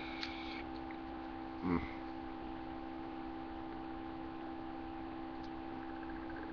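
A steady electrical hum, with one short, louder sound about two seconds in.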